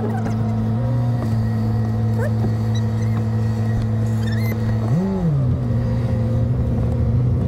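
Car engine running at low revs, heard from inside the cabin as the car creeps forward, a steady hum with one brief rise and fall in revs about five seconds in.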